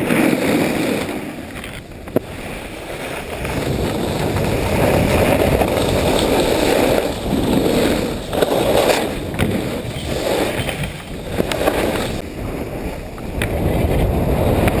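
Wind rushing over an action camera's microphone, mixed with the hiss and scrape of skis carving across packed snow during a run, rising and falling in waves as the skier turns.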